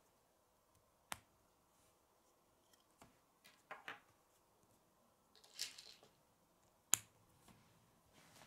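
K'nex plastic pieces clicking as they are snapped together, a few separate sharp clicks with a short rustle of parts being handled; the loudest snap comes about seven seconds in.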